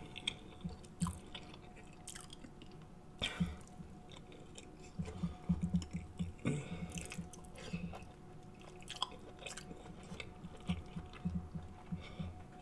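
Chewing a mouthful of seafood boil, with wet lip-smacking and sharp mouth clicks coming in irregular clusters.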